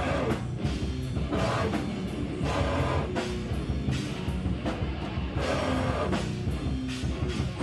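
A live rock band playing heavy music: electric guitar over a pounding drum kit.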